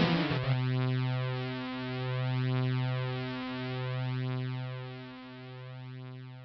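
Synthesizer music holding one low drone note that pulses slowly and fades away.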